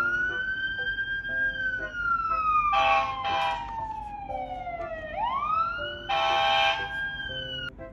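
Emergency-vehicle siren sound effect played through a children's sound book's small speaker. It is a wail that rises, falls slowly over about five seconds, then rises again and holds before cutting off, with short buzzy blasts over it twice.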